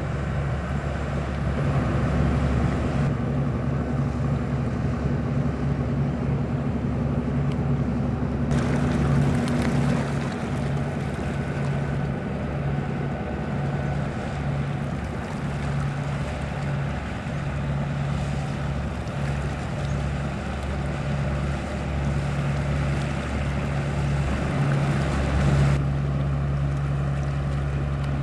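Diesel engines of boats passing on a river, a steady low chugging hum. The sound shifts abruptly a few times.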